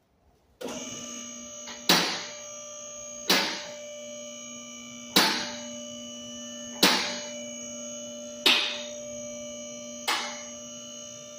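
Two-post car lift's electric hydraulic pump starting about half a second in and then running steadily as it raises the car body, with a sharp metallic clack about every one and a half seconds as the lift carriages pass the safety lock stops.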